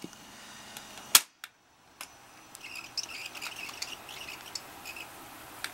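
Piano-key transport controls of an RCA YLG43 solid-state reel-to-reel tape recorder clicking, once sharply about a second in as the tape is stopped and again near the end. In between, the reels spin in rewind with a steady faint whir and light high ticking.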